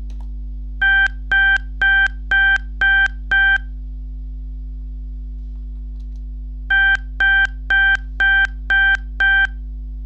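Dexcom G7 'urgent low soon' alert: two bursts of six short beeps of one steady pitch, about two a second, with a pause of about three seconds between the bursts, like an alarm clock's wake-up signal. It warns that blood glucose is heading towards an urgent low.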